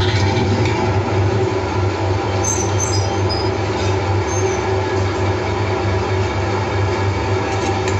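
Can sealing machine running steadily with a loud, even hum, with a few brief high squeaks about two and a half to four and a half seconds in.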